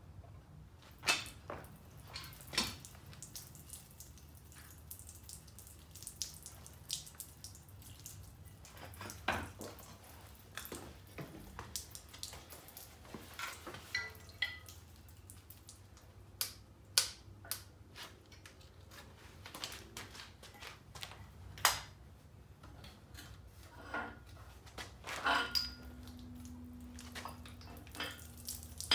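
Scattered metallic clinks and knocks of hand tools and parts on an engine block during teardown, irregular and a few loud, over a steady low hum.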